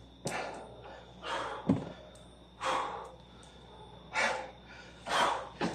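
A man breathing hard from burpee-style exercise, a loud breath about once a second, with one thud on the floor about a second and a half in.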